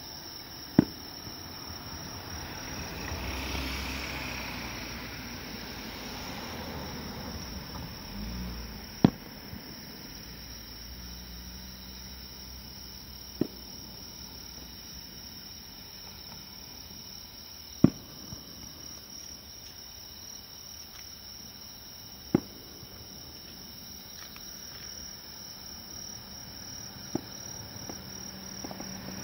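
Distant aerial firework shells bursting one at a time: six sharp booms, roughly four to five seconds apart, the loudest sounds here. A steady high insect trill runs underneath throughout.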